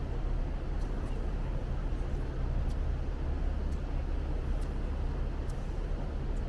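Fjord cruise boat's engines droning steadily, a low even hum under a rushing noise of wind and water.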